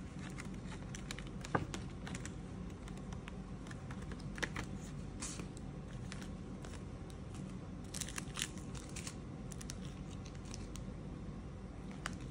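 Plastic wrap and sauce packets on a takeout food container crinkling and rustling as a hand handles them, in scattered crackles and small clicks. The sharpest click comes about a second and a half in.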